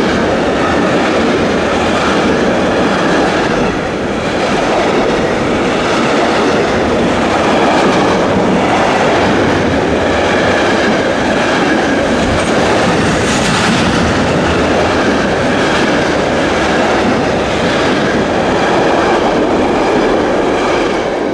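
Container train's loaded flat wagons rolling past close by at speed: a steady rumble of steel wheels on rail with a clickety-clack of wheels over the rail joints.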